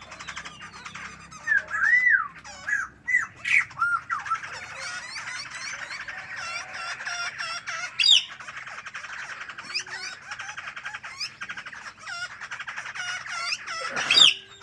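Songbirds singing and chattering: fast chirps and trills with curving whistled notes, and one loud sweeping call just after 14 seconds in.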